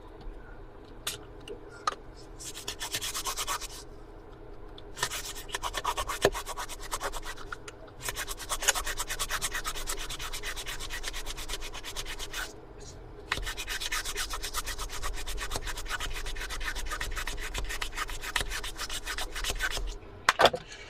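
A toothbrush scrubbing the corroded RAM slot area of a laptop motherboard to clean off the corrosion: rapid back-and-forth bristle strokes in several long spells, with brief pauses between them.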